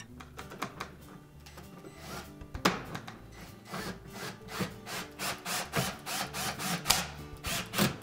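Cordless screwdriver driving screws into a dishwasher's door panel: a run of sharp ticks and scraping, thicker in the second half, over background music.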